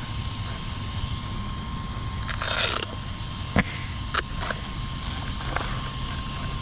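Hands working on the underside of an upturned Outcast 8S RC car's chassis: a rustling scrape a little over two seconds in, then a couple of sharp clicks of parts being handled.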